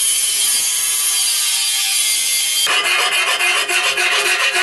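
Chicago Electric angle grinder with a cutoff disc cutting into angle iron held in a vise: a steady, high-pitched grinding hiss. About two and a half seconds in it turns coarser and fuller, with a rapid flutter, as the disc bites deeper into the metal.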